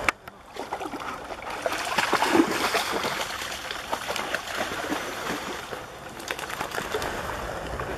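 Water splashing and lapping around a swimming dog, loudest a second or two in, with many small clicks scattered through it.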